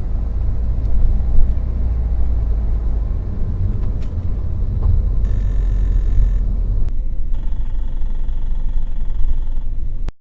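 Car cabin noise while driving: a steady low road and engine rumble, with a few sharp clicks and knocks now and then, plausibly the rattle from the B-pillar trim.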